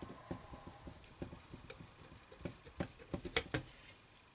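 Light irregular clicks and taps of a screwdriver and small screws against the sheet-metal bottom plate of a floppy disk drive as the plate is screwed back on, with a quick run of sharper clicks a little past three seconds in.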